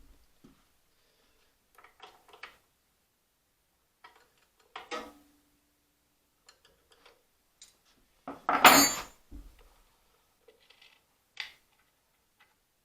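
Scattered clicks and clinks of small metal carburetor parts and hand tools being handled on a workbench during carburetor reassembly. There is a short ringing clink about five seconds in and one louder metallic clatter about eight and a half seconds in.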